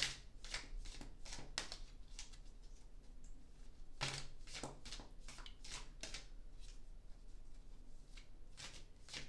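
A tarot deck being shuffled by hand: runs of quick, soft card slaps and riffles, with a pause of about two seconds after the first run.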